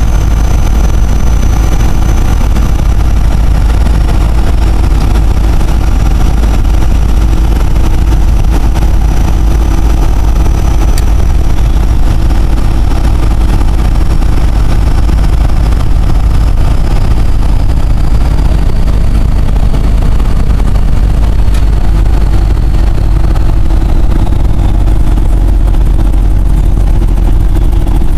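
4BT Cummins four-cylinder turbo diesel in a 1971 Dodge pickup, heard from inside the cab while cruising: a loud, steady, distorted engine drone. Over it a thin, high turbocharger whistle slowly falls in pitch.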